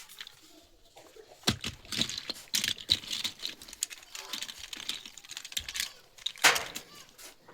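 Toy blocks being handled, a rapid run of small clicks and clatters with one louder knock about six and a half seconds in.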